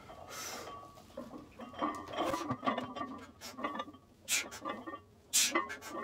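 A lifter breathing hard through a heavy barbell back squat set, with three sharp exhalations, about half a second in and twice near the end. Metal weight plates and the loaded bar clink and rattle in between.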